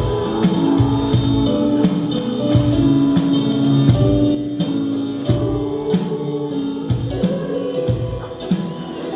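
A group of voices singing a gospel praise song in Spanish, with sustained sung notes over a steady drum-kit beat and band accompaniment.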